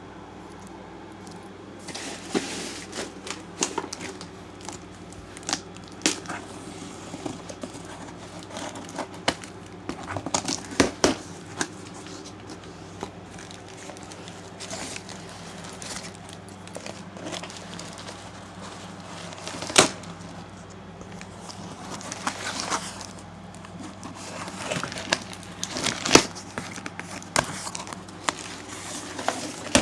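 A cardboard box being cut and torn open with a small hand tool, with packaging crinkling: irregular rips, scrapes and sharp clicks, some spaced out and some in quick clusters.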